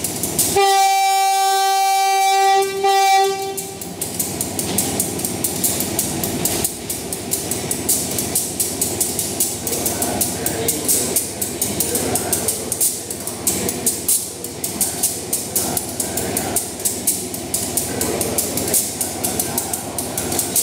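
SRT Class GEA diesel-electric locomotive sounding its horn on departure: one long blast, then a short one about three seconds in. Then the engine runs and the train rolls out with a steady rumble and a regular clatter of wheels.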